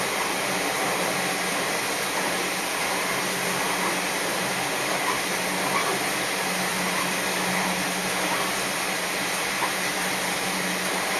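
Steady running noise inside a Sanriku Railway diesel railcar on the move: a constant low drone under the wheel-on-rail noise, with a few faint clicks.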